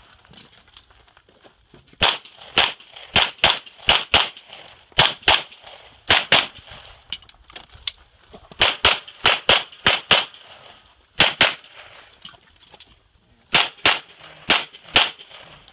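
Rapid 9mm pistol fire from a Glock 34, about twenty sharp shots, mostly in quick pairs, with pauses of one to two seconds between groups.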